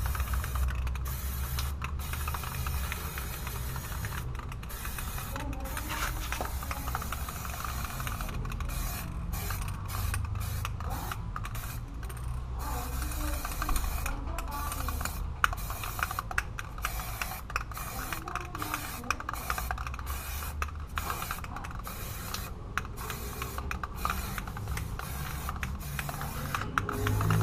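Aerosol spray paint can hissing in short, repeated bursts as paint is sprayed onto a car wheel, over a steady low hum.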